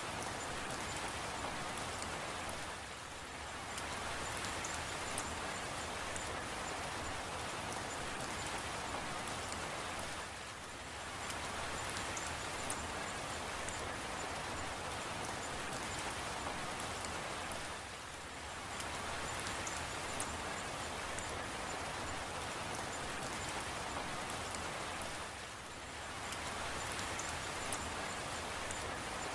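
Steady rain falling, a continuous hiss with faint fine drop ticks. It dips briefly in level about every seven or eight seconds.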